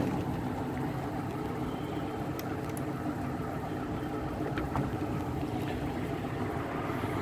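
A steady low mechanical hum, like an engine running, with a few faint clicks from a door latch being worked by hand.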